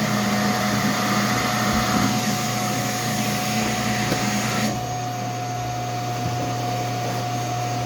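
Electric motor running steadily with a constant hum and whine, like a shop vacuum or power tool. About five seconds in, its high hiss drops away and the hum carries on.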